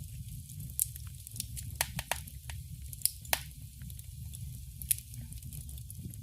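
A pot of thick blended-bean soup (gbegiri) simmering, with irregular sharp pops of bursting bubbles over a steady low rumble.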